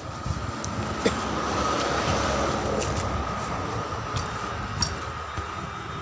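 A rubber inner tube rubs and gives a few light knocks as it is worked by hand inside a truck tyre on its steel rim. Under it runs a steady rushing background that swells for a couple of seconds in the middle.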